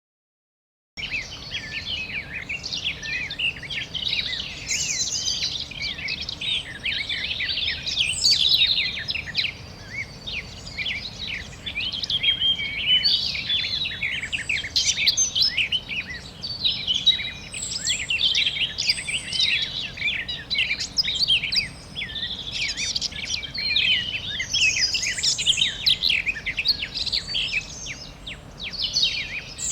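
A chorus of many small birds chirping and twittering together, a dense overlapping stream of short high chirps that starts about a second in, over a faint steady background hiss.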